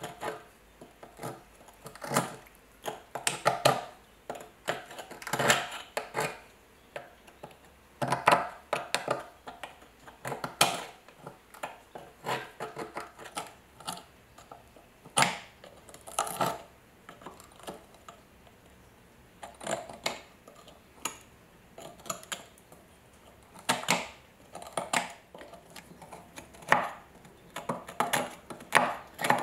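A steel pick prying and scraping thick rust scale off an old iron hammer head. The crust cracks away in irregular clusters of sharp clicks and short scraping strokes, with a brief lull midway.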